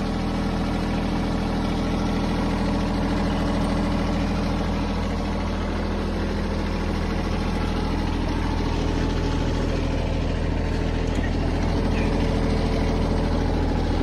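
Branson 2610H compact tractor's diesel engine idling steadily.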